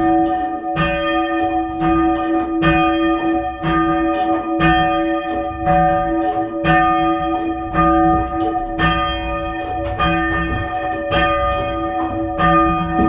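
A ring of three church bells cast by Thomas Mears II of London in 1824, rung full circle one after another in an even turn, about three strokes every two seconds, with the bells' low hum carrying on between strokes.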